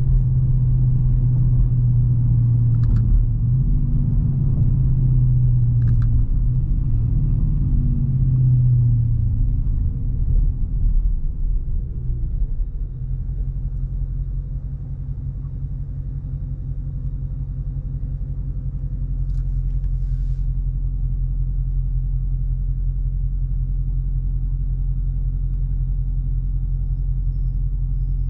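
Dodge Charger R/T's 5.7-litre V8 running at a steady cruise, then its note drops away over a few seconds as the car slows, settling into a low, steady idle rumble.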